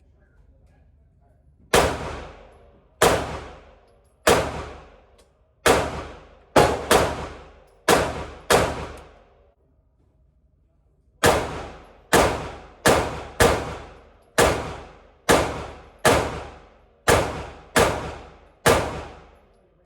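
9mm carbine firing single shots: a string of about eight, a pause of two seconds or so, then about eleven more, at an uneven pace of roughly one shot a second or a little faster. Each shot has a short tail that fades out.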